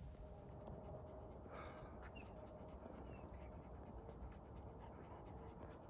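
Hunting hounds panting faintly.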